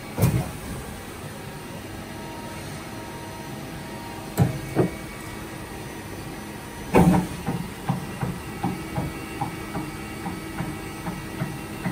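Tool turret of a Boehringer VDF 16-M 4 CNC lathe indexing: heavy metallic clunks, then a run of lighter clunks about three a second in the second half, over the steady hum of the running machine.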